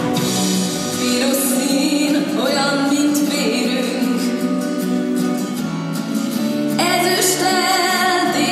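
Music: a female voice singing over instrumental accompaniment.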